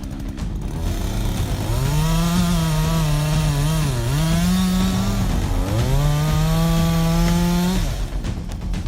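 A chainsaw engine revs up at high speed about a second and a half in. Its pitch dips twice as it runs, then it drops off near the end.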